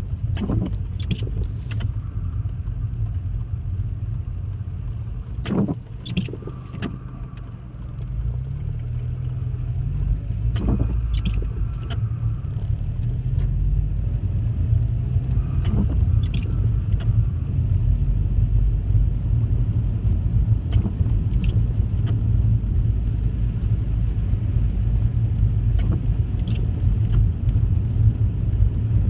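Car interior noise while driving: a steady low rumble of road and engine that grows louder about a quarter of the way in as the car picks up speed, with short clicks and rattles every few seconds.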